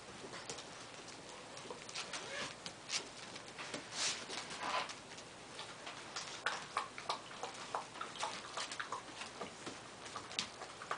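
Six-week-old puppies eating dry kibble from a glass bowl and moving about on a tile floor: a run of irregular small clicks and crunches from kibble and claws.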